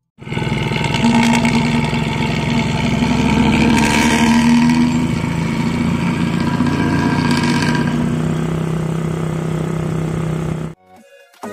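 Bus engine blaring through its loud 'ngorok' (snoring) exhaust, revving harder for the first few seconds, then running steadily before it stops suddenly near the end.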